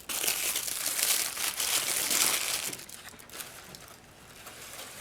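Packaging crinkling and crackling as it is handled, loud for the first two and a half seconds and then dying down to fainter rustles.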